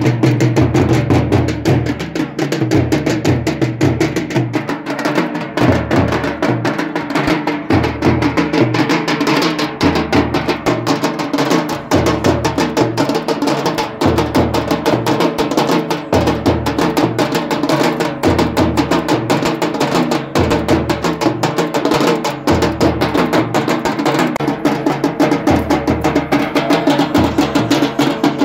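A band of several snare drums beaten rapidly with sticks over a bass drum keeping a repeating beat: loud, fast, continuous drumming.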